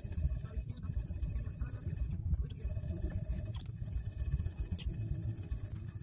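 Metal trimming tool scraping and peeling leather-hard clay from the foot of a pot on a spinning potter's wheel, over the wheel's low rumble, with a few sharp clicks.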